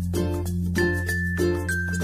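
Background music with a quick, steady run of notes over a held bass line.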